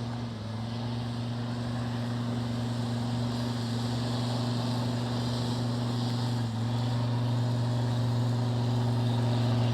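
A 4WD's engine running steadily under load as the driver tries to drive the vehicle out of soft beach sand where it is bogged. It makes a steady low hum that grows slowly louder, with a brief dip about six and a half seconds in.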